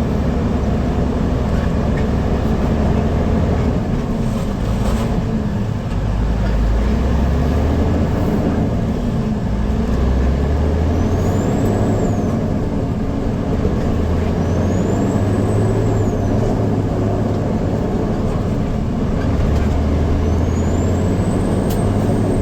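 Freightliner grain truck's diesel engine pulling away loaded, heard from the cab. The engine note climbs and drops again and again as it works up through the gears, and a high whistle rises and falls three times in the second half.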